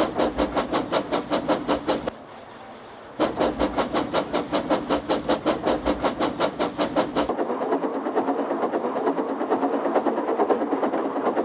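Steam locomotive chuffing at a steady four to five beats a second. The chuffing breaks off after about two seconds and resumes about a second later, and from about two-thirds of the way through it sounds duller.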